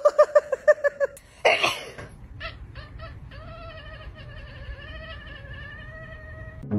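An orange tabby cat gives one long, wavering yowl that runs through the second half. It is preceded by a second of quick, pitched pulses and a short loud burst of noise.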